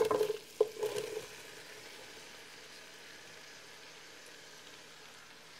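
Sliced onions tipped by hand from a bowl into a pot of hot melted butter: a few knocks and clatter in the first second or so, then a faint, steady sizzle.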